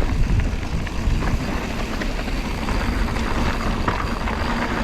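Wind rumbling steadily on a GoPro's microphone as a mountain bike rolls along a trail, with a few faint clicks and rattles.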